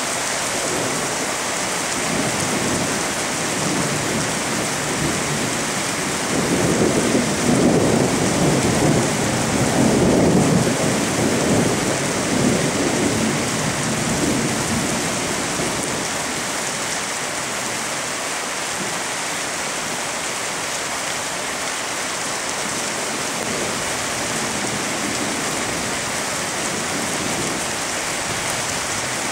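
Steady rain falling through a night thunderstorm. About six seconds in, a long roll of thunder swells, peaks and rumbles away over the next several seconds.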